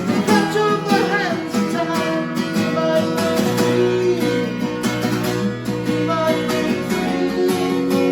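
Acoustic guitar playing an instrumental passage between the sung lines of a troubadour-style song, plucked melody over sustained low notes.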